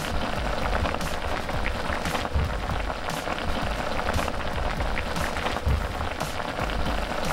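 Pot of spicy ramen broth with soft tofu and egg at a rolling boil: steady bubbling and popping, a dense patter like rain on a surface.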